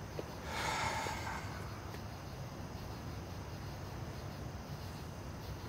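Quiet street ambience: a steady low hum of distant traffic with a faint hiss, briefly a little louder about a second in.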